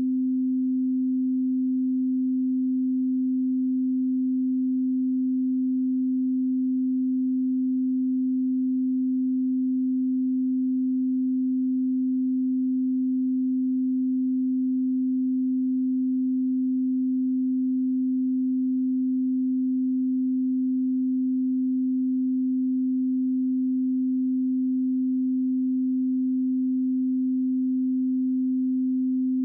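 Steady 258 Hz pure sine tone, an audio test and calibration signal, held at one constant pitch and level.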